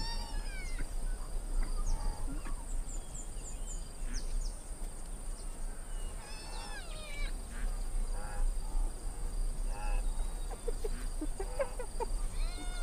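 Spotted hyena cubs squealing and whining in short, high, arched calls, in bursts near the start, about six seconds in and near the end.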